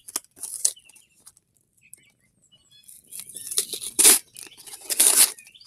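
Packaging being torn open by hand in several short rips: a few near the start, then a louder run with the strongest rip about four seconds in and another about a second later.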